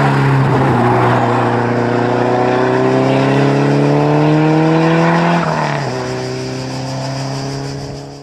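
Historic rally car's engine accelerating hard, its pitch climbing steadily for about five seconds. A gear change about five and a half seconds in drops the pitch, and it pulls again while fading away near the end.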